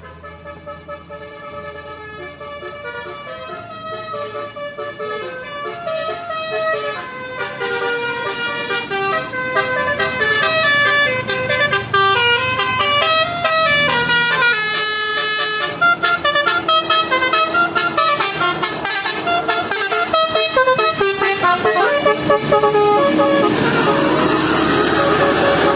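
Bus 'telolet' horn playing a tune of stepping notes, growing steadily louder. A loud rushing noise joins in near the end.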